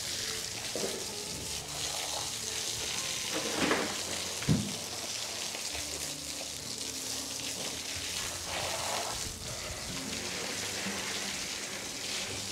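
Garden hose spraying water onto butchered meat on a table: a steady hiss of spray spattering on the meat. There is a brief knock about four and a half seconds in.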